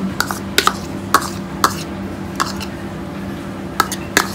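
Metal spoon tapping and scraping as chopped tomato is knocked off a small dish into a stainless steel mixing bowl: a series of short sharp clicks, irregular and sometimes two in quick succession, over a steady low hum.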